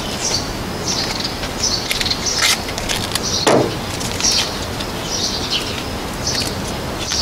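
Small birds chirping repeatedly, short high chirps every half second to a second, over a steady background hiss, with a brief louder rustle about three and a half seconds in.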